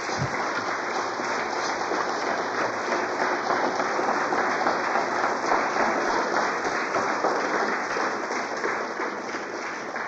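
Lecture-hall audience applauding steadily after a talk, easing off slightly near the end.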